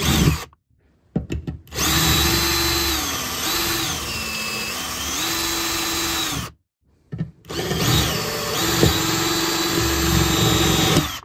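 Ryobi 18V cordless drill with a 3.5 mm bit drilling out the rivets of a boat rod-holder mount. The motor whines in three runs, stopping briefly about half a second in and again near seven seconds, and its pitch sags and recovers as the bit bites into the rivet head.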